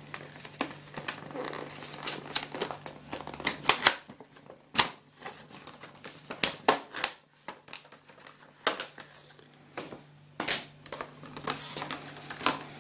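Clear plastic blister packaging and its card backing being handled and pried open by hand: irregular crinkling with sharp crackles and snaps.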